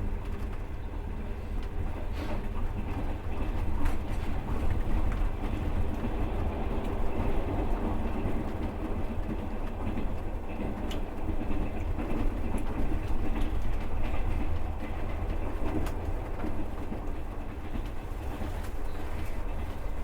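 Russian long-distance passenger train heard from inside the carriage, running with a steady rumble of wheels on the rails. A few sharp knocks and clicks come through now and then.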